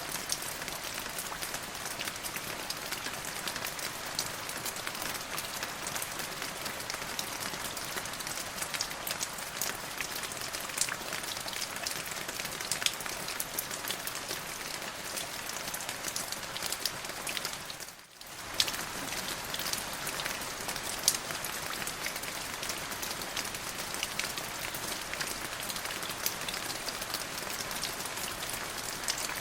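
Steady rainfall, a dense hiss of drops with many individual close drop splats ticking through it. About two-thirds of the way through it briefly fades down and comes straight back.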